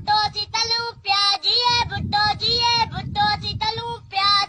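A high-pitched voice, like a child's, singing in short, quick syllables.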